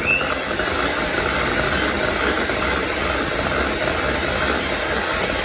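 Electric hand mixer running steadily, its beaters creaming cream cheese in a metal bowl.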